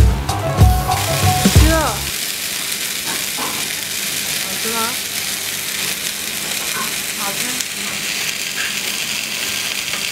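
Background music with a beat stops abruptly about two seconds in, leaving meat sizzling steadily on a hot stone grill plate.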